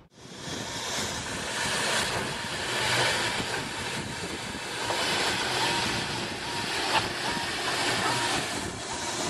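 Steam locomotive shunting slowly: a steady hiss of steam that swells and eases about once a second, with a sharp knock about seven seconds in.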